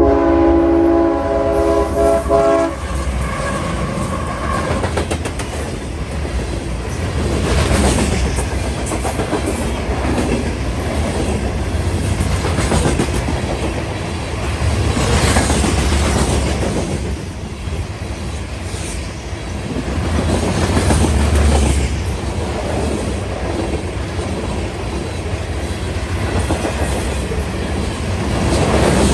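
CSX freight train's locomotive horn sounding for about three seconds at the start, then the freight train passing with a steady rumble and the clickety-clack of its cars' wheels over the rail joints.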